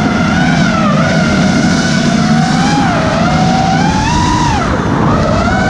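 FPV quadcopter's motors and propellers whining, the pitch rising and falling as the throttle changes, with a sharp dip and climb about five seconds in.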